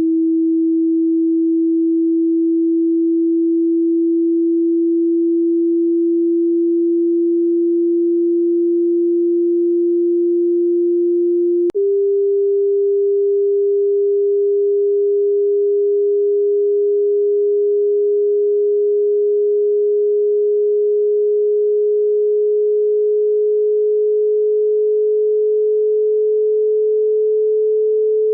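Pure electronic sine tone, steady and gliding very slowly upward. About twelve seconds in, a click, and it steps up to a slightly higher tone that keeps slowly rising. These are test tones played to match the pitch of the listener's tinnitus.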